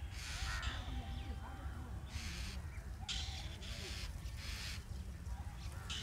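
Several short, harsh bird calls over a steady low rumble.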